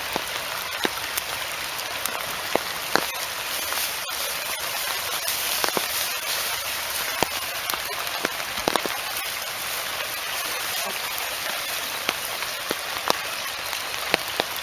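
Scissors cutting aluminium foil into small circles: irregular sharp snips and crinkles over a steady hiss.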